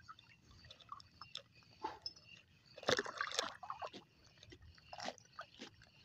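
Faint water lapping and sloshing in small irregular splashes, a little louder about three seconds in.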